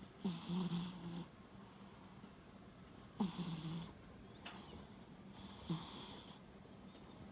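A sleeping cat snoring: three snoring breaths a few seconds apart, each a low buzz with a breathy hiss over it. A vet thought the snoring might come from the cat's small nostrils; the cat is otherwise healthy.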